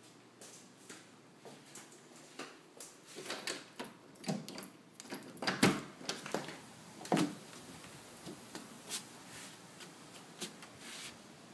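Scattered clicks and knocks from a glass-paned exterior door's lever handle and lock being worked and the door swung open. The loudest knocks come about five and a half seconds in and again about a second and a half later.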